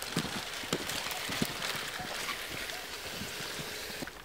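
Footsteps crunching through deep snow, with dry branches rustling and snapping as an armful of firewood is carried; many small irregular cracks over a steady hiss.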